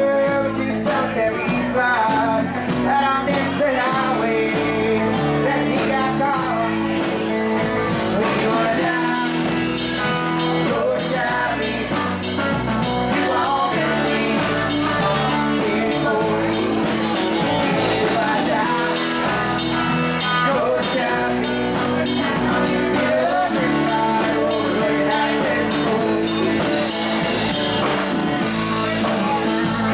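Live blues-rock band playing electric guitars, electric bass and drum kit, with a lead vocal sung into a microphone.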